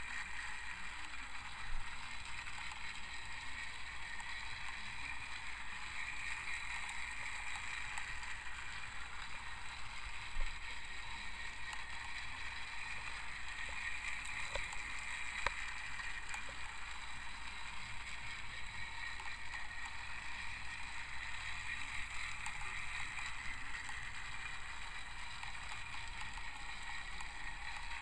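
Battery-powered TrackMaster toy engine's small electric motor and gears whirring steadily as it pulls its cars around plastic track, with a few light clicks.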